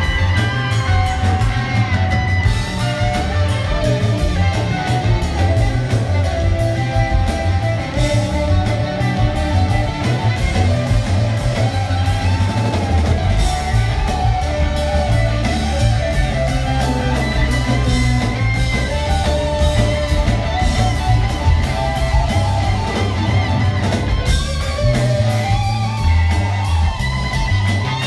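Live rock band playing an instrumental section: electric guitars over bass guitar and drum kit, heard from among the audience.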